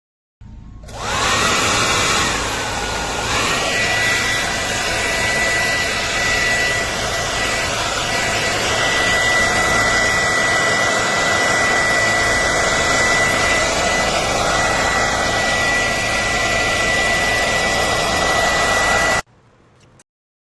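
ANNE BETTY 1800W ionic hair dryer running: a loud steady rush of air with a high whine. It comes up to speed within about a second of switching on. The whine dips in pitch briefly a couple of seconds in, then holds steady until the dryer cuts off suddenly near the end.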